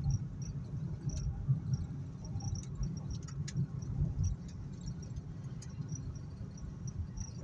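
Low road and engine rumble inside a moving car's cabin, with irregular light, high-pitched ticks and small clicks scattered over it.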